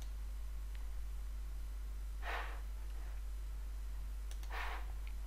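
Two breaths close to a microphone, about two seconds apart, over a steady low hum, with a faint click or two of a computer mouse.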